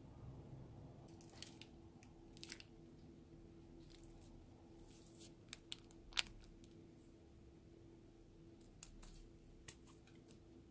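Plastic piping bags filled with slime ingredients being handled: sparse small clicks and crinkles, the sharpest about six seconds in, then scissors snipping near the end as the tip of a bag is cut. A faint steady hum lies underneath.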